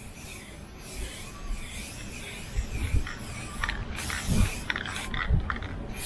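Aerosol can of clear coat being shaken: the mixing ball rattles inside the can in clusters of short clicks, with a few dull knocks and a faint hiss.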